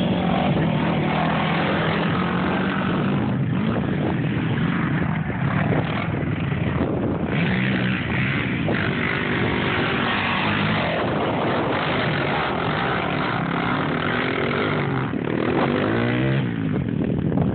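Sport quad (ATV) engines running and revving, the pitch rising and falling with the throttle, with a rising rev near the end.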